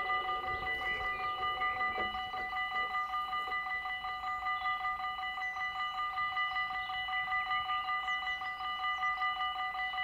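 Dutch level crossing's electronic warning bells ringing in a fast, steady pulse of bright tones. The barrier arm swings down and comes to rest with a short knock about two seconds in.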